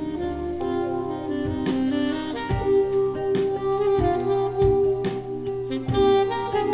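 Smooth-jazz track with a lead saxophone over drums, played back loud through custom Altec loudspeakers (414-16B woofer, 802D compression driver on 811 horns) driven by Heathkit W5M KT66 tube amplifiers, and picked up in the room by a microphone. Sustained sax notes sit over a few heavy kick-drum thumps in the second half.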